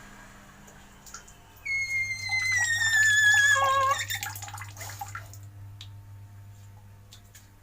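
PVC bathroom pipe giving a whistling squeal that slowly falls in pitch for about two seconds, then drops lower and stops. Water drips and gurgles after it.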